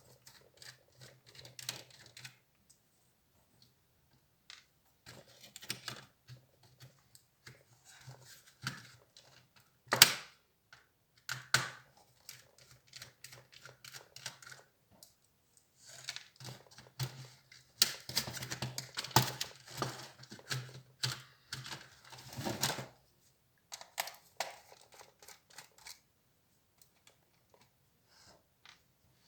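Irregular clicks, taps and rattles of an HP Compaq 6910p laptop's plastic and metal parts being handled while it is taken apart. A single sharp click comes about ten seconds in, and a busier stretch of clatter runs from about sixteen to twenty-three seconds.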